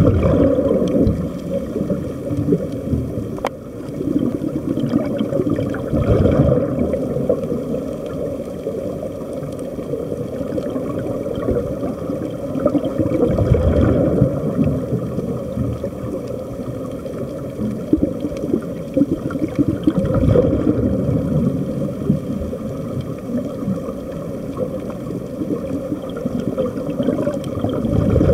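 Muffled underwater gurgling and rumbling of air bubbles escaping from air-fed diving helmets, swelling and easing in surges every few seconds.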